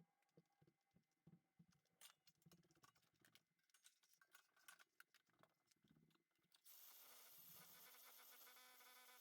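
Near silence: faint scattered ticks and soft taps, then about two-thirds of the way in a faint steady hiss with a low hum comes on suddenly.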